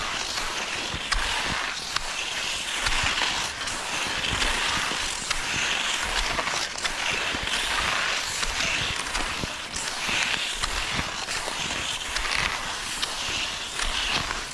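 Cross-country skis sliding and scraping over a packed snow trail, a swishing that swells and fades about every second and a half with the strides, over low irregular rumbling.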